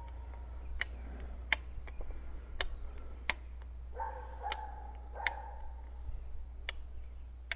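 Fence stretcher being worked to tension wire on a steel T-post: sharp metallic clicks at uneven spacing, about one a second. Around the middle a held high squeal-like tone sounds twice between the clicks.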